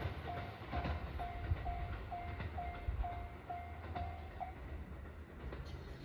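Japanese level-crossing warning bell ringing about twice a second, then stopping about four and a half seconds in as the crossing clears. Under it, a low rumble and a few wheel clicks from the Marine Liner rapid train running away from the crossing.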